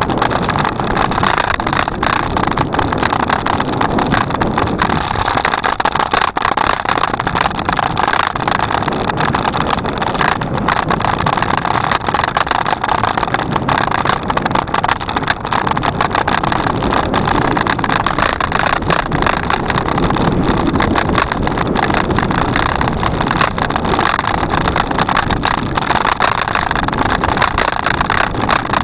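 Steady rush of wind on the microphone, with a constant rattle and clicking from a bicycle in motion.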